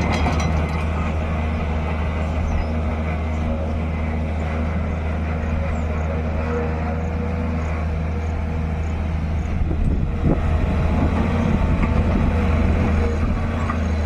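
SANY SY220C excavator's diesel engine running steadily, getting a little louder from about ten seconds in.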